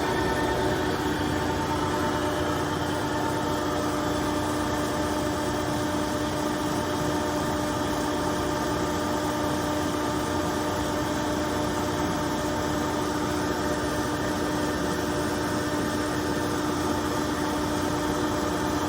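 LeBlond Regal sliding gap bed lathe running steadily on a test run: an even drive hum with several steady tones over a noisy whir, its speed unchanged.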